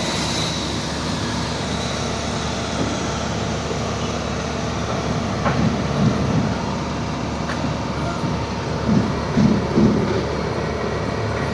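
Steady machine hum, with a few faint clicks and some low, uneven rumbles in the second half.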